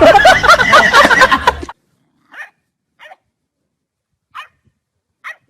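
A dog barking and yelping rapidly and loudly for about a second and a half, then four short, faint yips spaced about a second apart.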